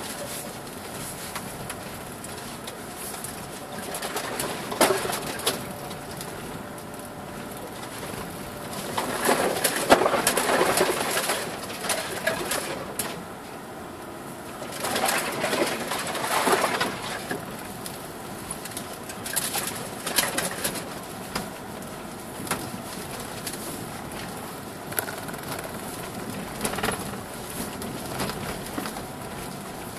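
Cabin noise of a 2007 Subaru Forester driving on a rutted forest dirt track: a steady rumble of tyres and body, with several louder rough stretches as the car goes over bumps, the loudest about ten seconds in.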